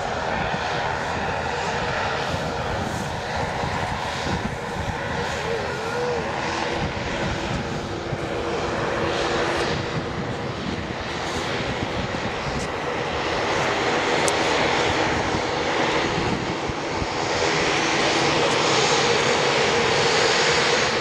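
Twin Pratt & Whitney PT6A turboprop engines of a Beechcraft King Air running at taxi power, a steady whine over a propeller hiss. The sound grows louder in the second half.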